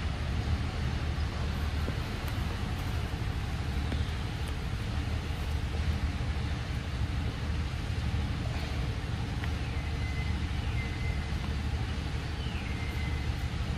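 A steady low rumble like a running engine or distant traffic, with two faint high whistling calls near the end, each gliding down and then holding a tone.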